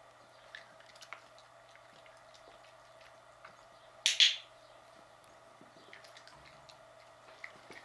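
A dog-training clicker clicked once about four seconds in, a sharp two-part click-clack, marking the dog's correct placement lying in her bed. A few faint taps come before and after it.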